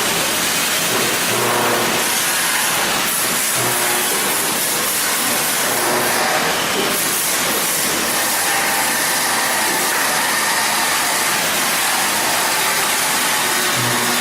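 A steady, loud hiss with faint musical tones underneath.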